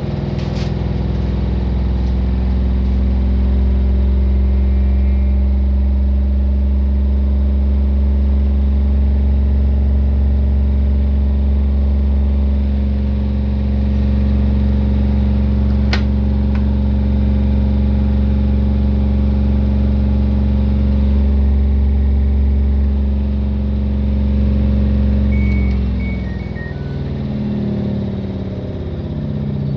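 LG ThinQ WM4WR70X6Y washing machine running its maintenance programme, its drum spinning at speed with a steady low motor hum. There is a single sharp click about halfway, and near the end the hum's pitch shifts as the spin changes speed.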